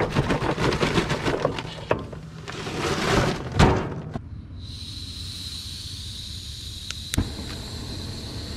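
Kingsford Match Light charcoal briquettes clattering as they are poured from the bag onto a grill's charcoal tray, with bag rustling and a loud knock about three and a half seconds in. After that, a propane torch gives a steady hiss with a thin whistle, with a sharp click about seven seconds in.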